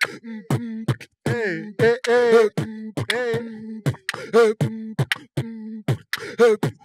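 Beatboxing an Afro-style beat: a voice makes quick, sharp mouth-percussion clicks over a held hum, with sliding sung notes in between.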